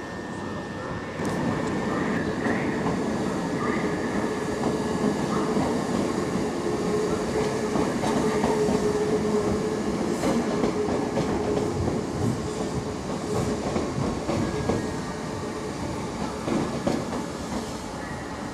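Southern Class 377 Electrostar electric multiple unit running along the tracks, its wheels on the rails and a steady hum, growing louder about a second in.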